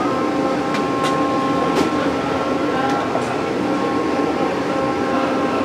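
Steady mechanical hum with several held tones over a noisy bed. A few sharp clinks of steel utensils against steel bowls sound around the first two seconds.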